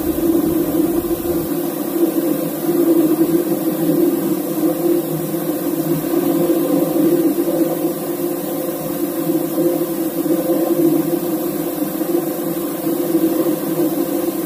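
Steady drone of a ship's running machinery, an even, unchanging hum with no starts or stops.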